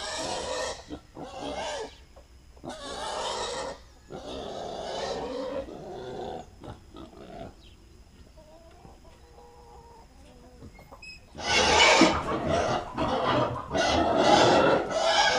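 Pigs grunting and squealing in short, rough bursts, with a quieter lull in the middle and louder, denser squealing over the last few seconds; hens cluck faintly.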